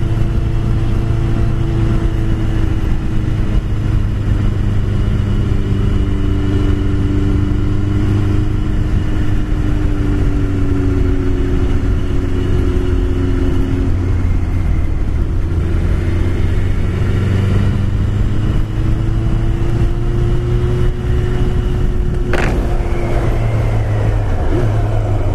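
Motorcycle engine running under way, its pitch drifting gently up and down with the throttle over a heavy low rumble of wind and road noise. A single sharp click sounds near the end.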